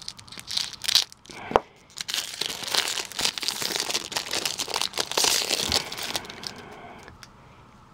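Clear cellophane wrapper of a 1989 Fleer baseball card rack pack crinkling and tearing as hands pull the stack of cards out of it. The stiff plastic is hard to tear open. The crackling is densest in the middle and dies down near the end.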